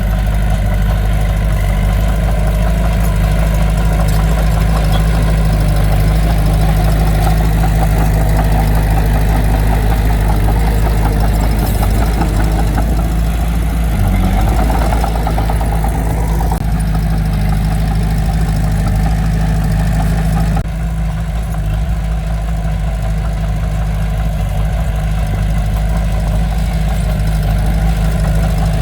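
Heavy earthmoving machine's diesel engine running steadily, a low rumbling tone with a slight drop in level about twenty seconds in.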